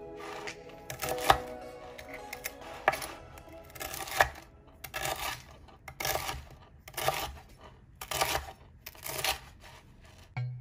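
Chef's knife cutting through crisp toasted bread into croutons on a plastic cutting board, a crunchy cut about once a second. Background music in the first couple of seconds.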